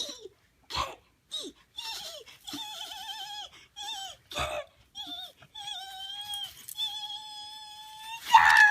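A person making silly high-pitched whining squeaks with a wavering pitch, in a string of short and longer calls. Near the end comes a louder squeal that falls in pitch, like a mock whinny.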